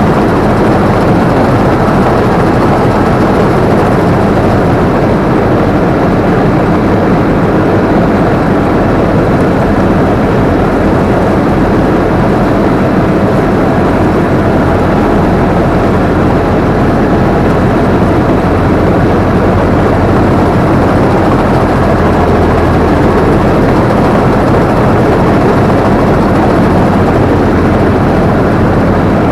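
Combine harvester running steadily at working speed, heard loud and close from the operator's seat: a constant mechanical drone of engine and machinery with a low hum underneath.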